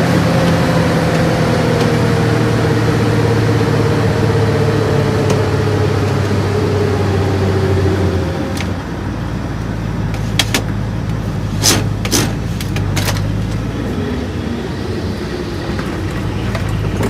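1965 Ford Galaxie driving, heard from inside the cabin: steady engine and road noise, with a whine that falls in pitch over the first eight seconds. It then settles to a quieter run, with a few sharp clicks about ten to thirteen seconds in.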